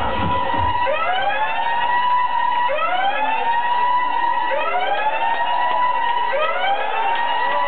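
Siren sound effect in a dance track over a nightclub sound system: the bass beat drops out about a second in, and a rising tone sweeps up and levels off, again and again, about every second and a half to two seconds.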